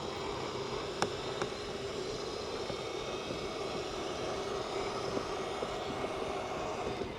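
An RV slide-out's electric motor running with a steady hum as the slide retracts, with a sharp click about a second in; the motor stops near the end.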